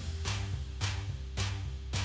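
Background music with a steady drum beat, about two hits a second, over a bass line.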